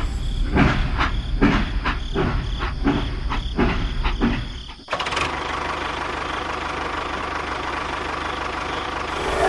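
An engine: uneven knocks about two a second for the first half, then it cuts suddenly to a steady running noise.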